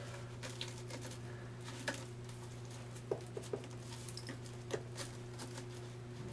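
Scattered faint plastic clicks and scrapes as a Kirby Generation vacuum's fill tube is twisted and screwed onto its plastic bag adapter, over a steady low hum.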